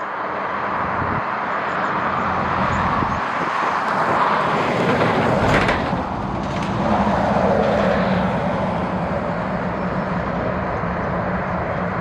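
Jet airliner passing close on its landing approach: a loud, steady engine rush that builds to a peak about halfway through, then a falling tone as it goes by. Gusts of strong wind rumble on the microphone.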